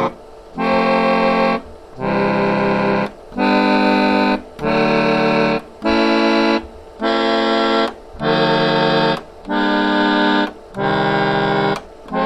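Bontempi chord organ's blown-reed chord buttons played one after another: about ten reedy chords, each held for about a second with short gaps between them. The chords are not really in key.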